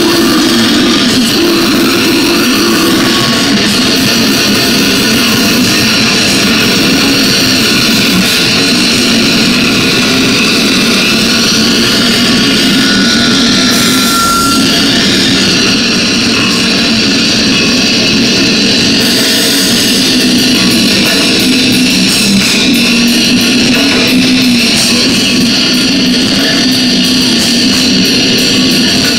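Metal band playing live and loud: electric guitar, bass and drums through the stage PA, heard from the audience, steady with no breaks.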